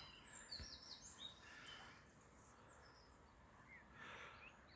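Near silence with faint birds chirping: a few short, quick chirps in the first second and a half, and two more near the end.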